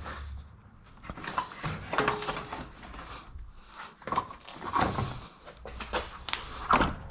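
Irregular knocks, clunks and scrapes of a car radiator and fan shroud assembly being handled and set down into its rubber pedestal mounts.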